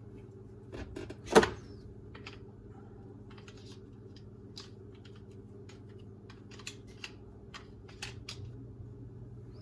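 Plastic dishwasher parts being handled and fitted back into the tub: one sharp knock about a second and a half in, then scattered light clicks and taps, over a steady low hum.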